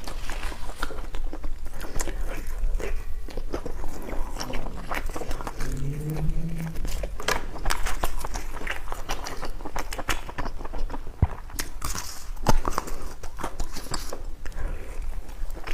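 A person chewing and biting food close to the microphone, with many small clicks and crunches throughout. There is a brief low hum about six seconds in.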